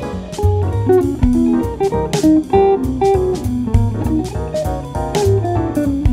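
Amplified archtop hollow-body jazz guitar playing a line of plucked melody notes over low bass notes.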